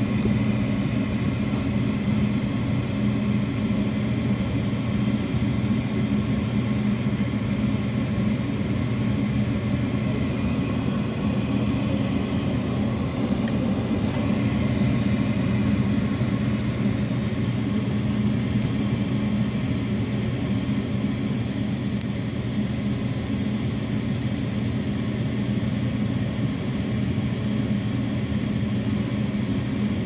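Gas furnace inducer (draft) fan motor running with a steady hum during the start-up sequence on a call for heat, before the burners light. A faint tick comes about halfway through.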